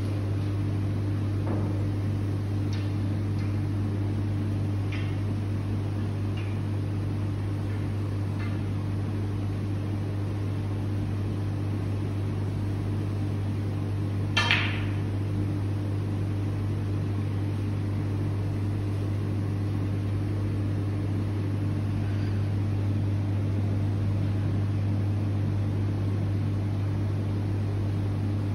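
A steady low machine hum with a constant pitch. About halfway through there is one short, sharp click.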